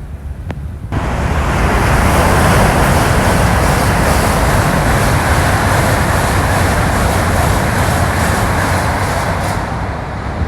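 High-speed train passing close by at speed: a rush of wheel and air noise that starts abruptly about a second in, holds steady, and eases off near the end.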